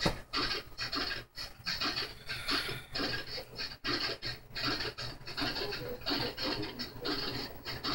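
A paint sponge dabbed and rubbed against the slats of a wooden bushel basket: uneven scratchy strokes, several a second, over a low steady hum.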